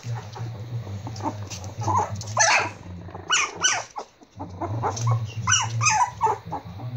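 Four-week-old Prague Ratter puppies yipping in play: a string of short, high-pitched yelps. They are loudest in clusters about two and a half seconds in and again from five to six seconds in.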